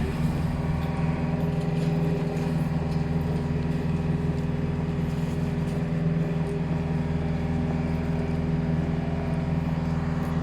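A large engine running steadily at a held speed, its pitch constant.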